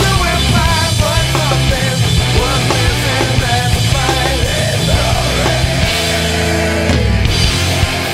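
Nu metal song played by a full rock band, with heavily distorted guitars, bass and drums. About six seconds in, the riff gives way to a held chord for roughly a second before the band comes back in.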